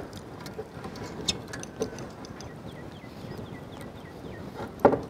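Faint clicks, taps and rustles of hands tying a whole raw turkey onto a bamboo spit, with a few sharper ticks. A run of short, falling whistled notes sounds near the middle.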